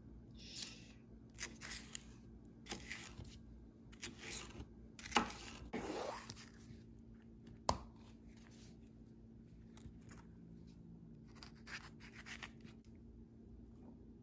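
A chef's knife slicing through bell peppers on a thin plastic cutting mat: a series of short crisp cuts, with a longer, louder cut about five seconds in and a sharp click near eight seconds. A low steady hum runs underneath.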